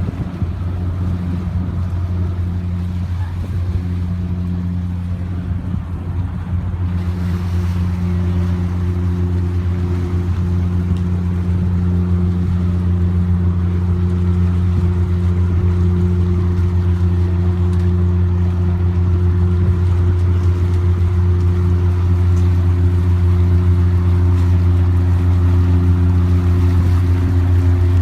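Engine of a Biwako Kisen passenger vessel running with a steady low drone while the ship manoeuvres to berth. The drone slowly grows louder.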